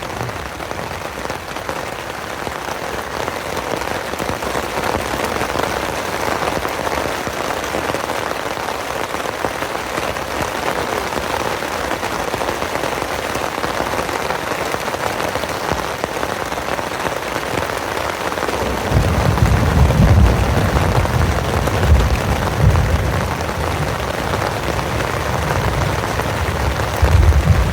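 Heavy rain falling steadily in a thunderstorm. A low rolling rumble of thunder comes in about two-thirds of the way through and swells again near the end.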